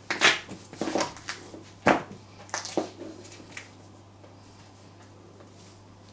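Stiletto heels treading on raw carrots on a ceramic tile floor: several sharp crunches and heel clicks in the first three and a half seconds, then only a faint steady hum.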